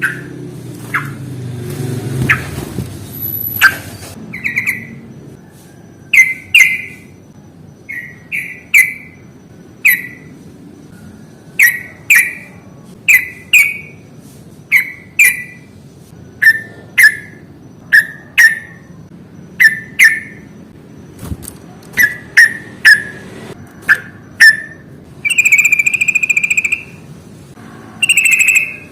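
Yellow-vented bulbul giving short, sharp chirps about once a second, many in quick pairs, then longer harsh drawn-out notes near the end. A low rumble underlies the first few seconds.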